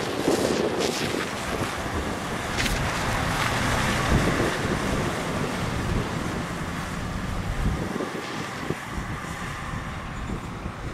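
A 2012 Pierce Velocity fire engine's diesel engine rumbles as the truck pulls away, slowly fading, with wind buffeting the microphone.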